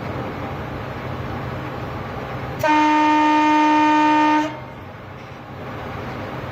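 Train horn sounded in one steady blast of about two seconds, starting about two and a half seconds in, over the steady running noise of the train heard from inside the locomotive cab.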